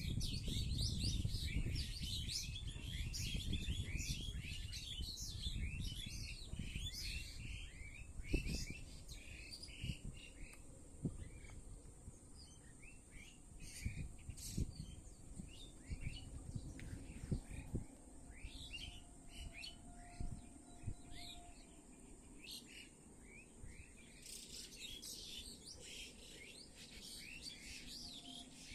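A flock of small birds chirping in a tree, many short overlapping chirps at once, thinning out midway and picking up again near the end. A steady high hiss runs underneath, and a low rumble fills the first few seconds.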